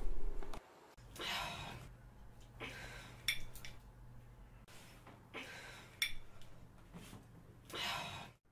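A woman breathing hard in about five short, effortful exhalations while straining to twist the lid off a stuck pickle jar, with a few faint clicks between them. A steady low hum underneath.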